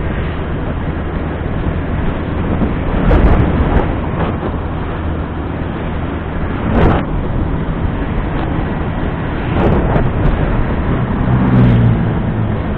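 Riding noise on a motor scooter: steady wind rush and engine drone, swelling louder a few times as traffic goes by or the wind gusts.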